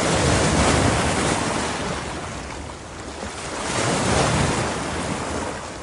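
Ocean surf with wind: waves washing in, swelling loud about half a second in, easing off, then surging again about four seconds in before dying away.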